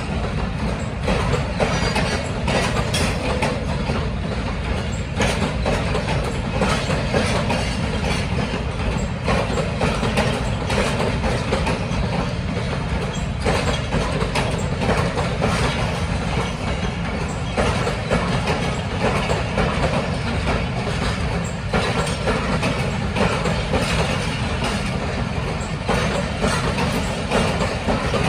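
Passenger train coaches rolling past on the track, a steady rumble of wheels on rail with repeated clicks and knocks as the wheels cross rail joints.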